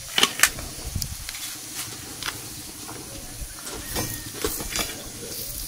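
Scattered crackles and sharp pops over a steady high hiss, with a cluster of louder pops near the start.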